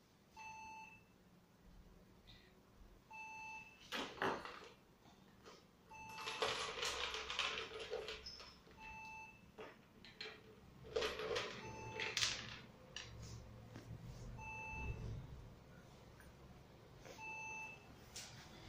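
A short electronic beep repeating about every two and a half to three seconds, with bursts of rattling and clattering from plastic toys and beads being handled on a table.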